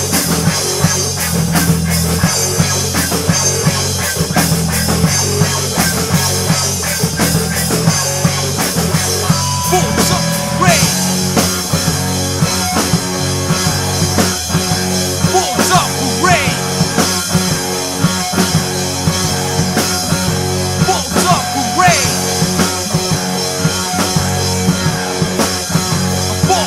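Instrumental hard rock: a distorted electric guitar riff over bass and a drum kit. Guitar pitch slides swoop upward about every five to six seconds from about ten seconds in.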